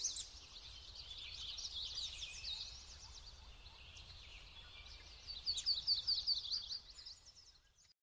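Small songbird singing: fast runs of high, quick down-slurred chirps, loudest near the start and again about five and a half seconds in, over a faint low outdoor rumble, fading out just before the end.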